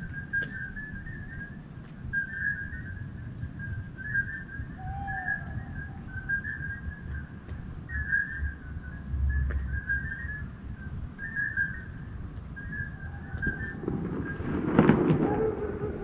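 Night countryside ambience: a small animal's short, high trilling calls repeat about once a second over a low steady rumble. Near the end a louder, fuller sound swells briefly.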